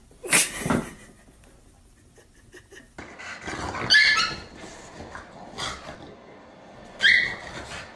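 A brief loud noise near the start, then two dogs play-fighting: growling with a small dog's sharp high barks about four and seven seconds in.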